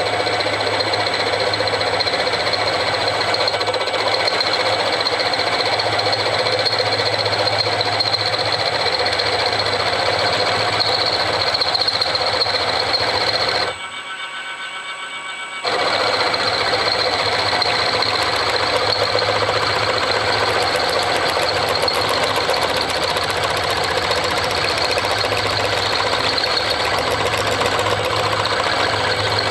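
Milling machine running steadily while drilling pin holes in a steel shaft with a drill bit. The sound drops away abruptly for about two seconds midway, then comes back.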